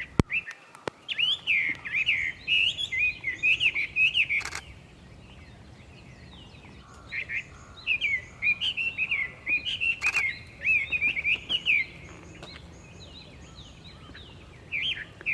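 Chinese hwamei singing: loud, rich, rapidly varied whistled phrases in two long bouts with a pause of a few seconds between them, starting again near the end.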